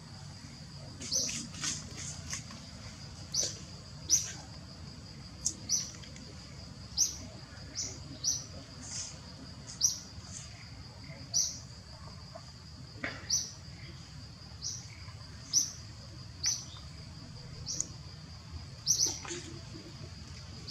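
Short, sharp, high chirping calls repeated irregularly, roughly one a second, over a steady high insect drone.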